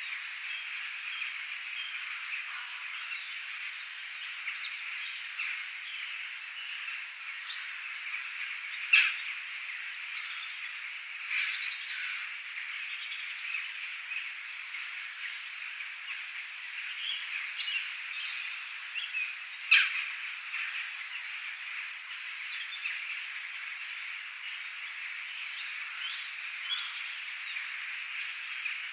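Rain ambience with a dense, steady chorus of small animal calls and chirps. Two sharp, loud clicks stand out, about 9 and 20 seconds in.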